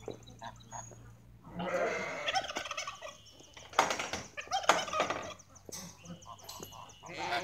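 Animal calls: several bursts of wavering cries, the loudest about two seconds in and again around four to five seconds in.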